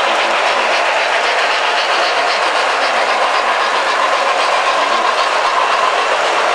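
O gauge model train rolling steadily along its track: an even rumbling run with rapid clicking of the wheels over the rail joints.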